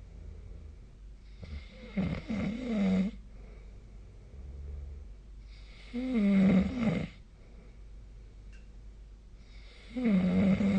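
A person snoring in a steady rhythm: three snores about four seconds apart, each lasting about a second with a wavering pitch.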